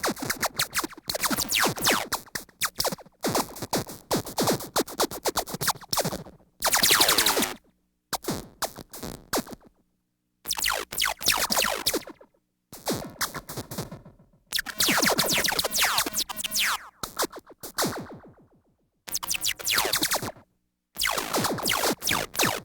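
Synthesized sci-fi laser blasts firing in rapid volleys, each zap sweeping down in pitch, with short silences between about ten bursts.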